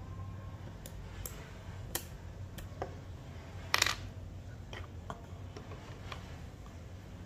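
Plastic keyboard keycaps being handled and set down on a desk: a few light, scattered clicks, the loudest a short clatter near four seconds in.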